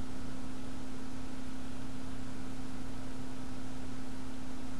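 Steady hiss with a constant low-pitched hum underneath, unchanging throughout; no distinct screwdriver or handling sounds stand out.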